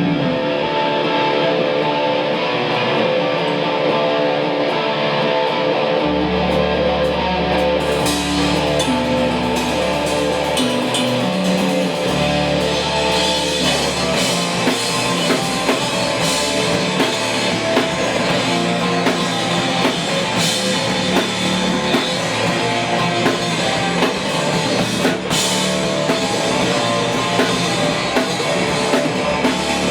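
Rock band playing an instrumental passage with electric guitar and drum kit. The low end comes in about six seconds in, and the cymbals join about eight seconds in as the full band builds up.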